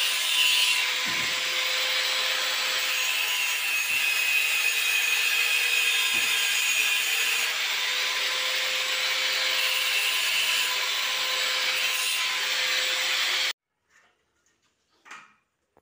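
Handheld electric angle grinder cutting through a metal pipe with a cut-off disc: a steady, loud grinding with a constant motor whine. It cuts off abruptly about thirteen seconds in, followed by near silence and one faint knock.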